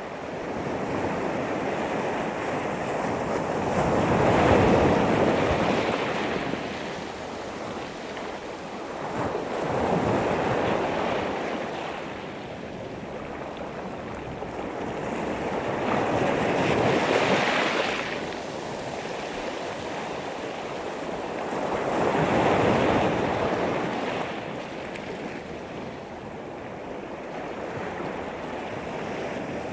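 Sea waves washing up a pebble beach, the surf surging and hissing over the stones in four swells about five to seven seconds apart.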